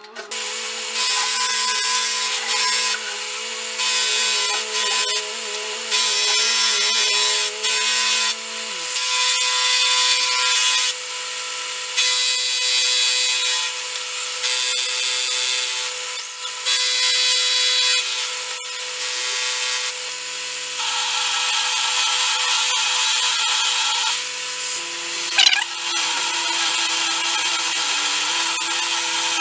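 Benchtop milling machine's end mill cutting steel that has been annealed after hardening, a steady rasping cut over the whine of the spindle motor, with short dips in the cutting noise. About nine seconds in, a lower hum under the cut drops in pitch. The steel cuts cleanly, a sign the hardening has been fully removed.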